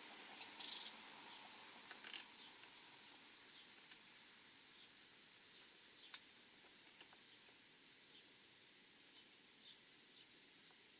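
Steady high-pitched drone of insects chirring outdoors, with a few faint clicks and one sharp tick about six seconds in from a scooter's plastic windshield being handled and fitted. The whole sound grows quieter after about seven seconds.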